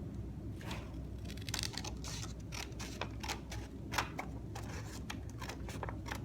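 Scissors cutting through construction paper: a run of irregular snips with crisp paper rustles.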